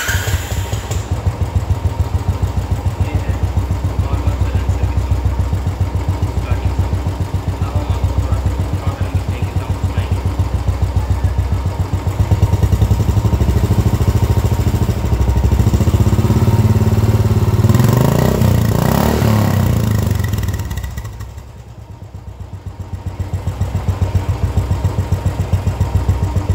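Royal Enfield Classic 350 single-cylinder engine running through an aftermarket upswept (angular) silencer, heard at the exhaust outlet: a steady idle beat, revved up about eighteen seconds in, then dropping back to idle.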